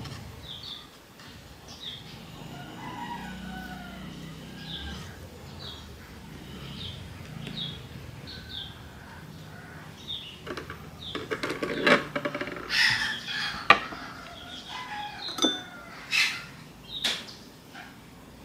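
Small birds chirping over and over, with chickens and a rooster calling, louder in the second half. A few sharp taps of a knife on a wooden cutting board as tomatoes are sliced.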